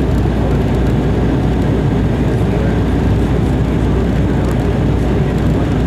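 Steady cabin rumble inside an Embraer E190 jet on its landing approach, heard from a window seat beside the wing-mounted GE CF34-10E turbofan: engine noise and rushing air, heaviest in the low end, with no distinct events.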